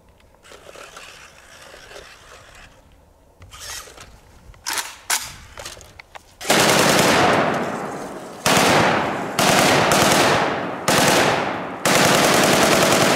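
Full-auto AK-47 in 7.62×39 mm firing long bursts: after a few quieter seconds with a couple of sharp knocks, one long burst starts about six and a half seconds in, followed by four shorter bursts in quick succession.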